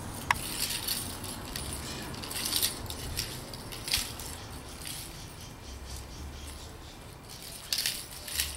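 Wooden sticks swung and tapped together in a mock sword fight, giving a few scattered light clacks and rattly knocks.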